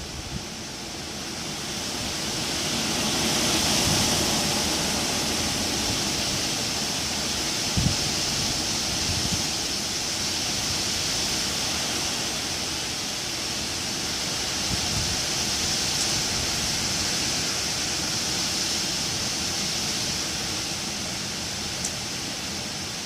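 Wind blowing through trees: a steady rushing of leaves that swells about four seconds in and then eases off slowly, with a low thump about eight seconds in.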